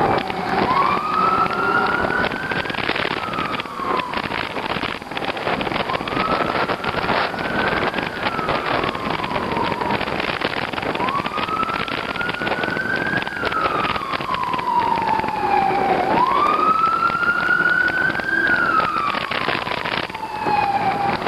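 Emergency vehicle siren wailing, its pitch rising and then falling in a slow cycle about every five seconds, over steady wind and road noise.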